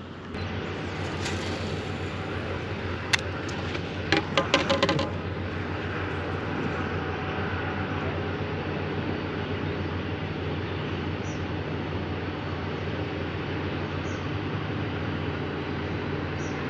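Boat motor running steadily with a low hum under a wash of noise, the boat under way. A few sharp knocks come between about three and five seconds in.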